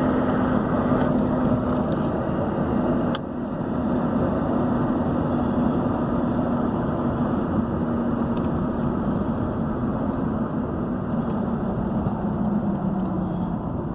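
Steady engine and tyre noise heard from inside a car driving along a road, with a low steady hum. There is a brief click and dip in level about three seconds in.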